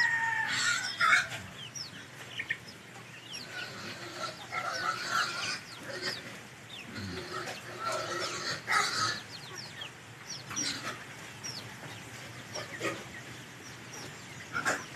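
Backyard chickens clucking, with many short, falling high chirps scattered through.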